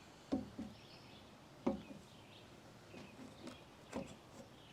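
A few light, separate knocks and taps of hands handling the sink and countertop as they are positioned, spaced about a second or more apart. Faint bird chirps can be heard behind them.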